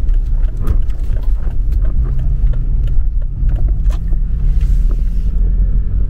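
Car driving along a highway, heard from inside the cabin: a steady low rumble of engine and road noise, with scattered small ticks and knocks.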